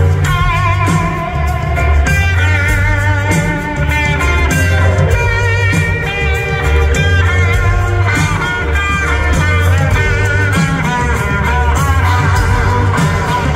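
Live blues-rock band playing an instrumental passage: an electric guitar lead with wavering, bent notes over bass and drums.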